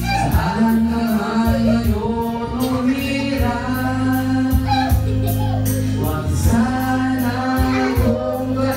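Man singing a slow ballad into a handheld karaoke microphone over a recorded karaoke backing track with steady held bass notes.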